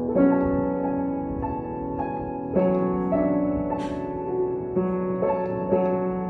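Upright piano playing a slow piece: notes and chords struck about twice a second, each left ringing into the next.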